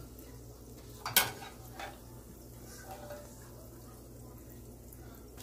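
A wire skimmer gives one sharp clack against the cookware about a second in, with a couple of lighter knocks around it, while dough-wrapped Oreos fry quietly in oil over a low steady hum.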